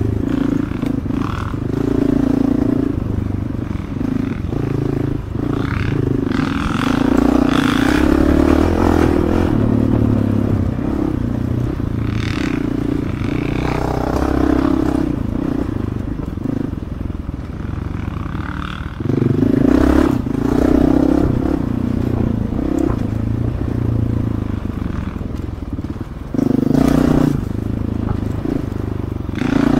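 Dirt bike engine ridden at varying throttle along a rough trail, heard from on the bike, its note rising and falling, with short knocks and rattles from the bike over the ground. It opens up harder about 19 seconds in and again shortly before the end.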